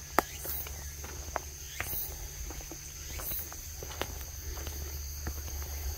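Footsteps on a hillside trail, irregular scuffs and crunches, over a steady high-pitched buzzing of insects.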